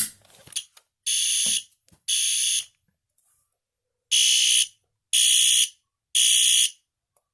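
A sharp click as the fire alarm pull station is pulled, then a System Sensor SpectrAlert Advanced fire alarm horn sounds the alarm. It gives loud, buzzy half-second blasts about a second apart, grouped in threes with a longer pause between groups, the temporal-three evacuation pattern.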